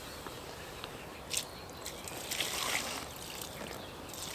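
Water poured from a bucket splashing onto a carp lying on an unhooking mat, wetting the fish. The pouring comes twice, the second starting near the end, with a short click a little over a second in.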